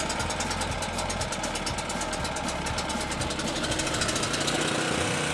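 Portable generator engine running steadily with a fast, even beat, just after being powered up to supply the electric chainsaws.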